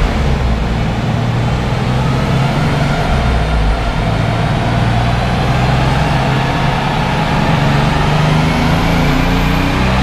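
Toyota Supra's engine running steadily on a chassis dyno, with a loud low drone whose pitch creeps up slightly near the end.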